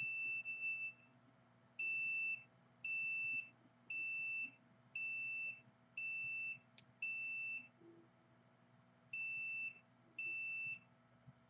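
A handheld signal meter's alarm beeping, a high-pitched electronic beep about once a second, with a pause of about two seconds late on, as it registers a high reading. A single sharp click falls between beeps about halfway through.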